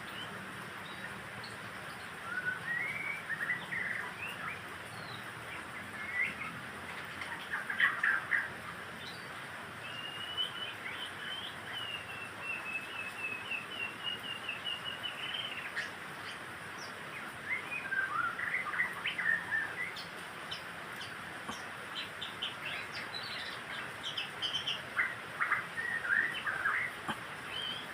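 White-rumped shama (murai batu) singing: varied whistled phrases and chirps broken by short pauses, with a long, even trill about ten seconds in.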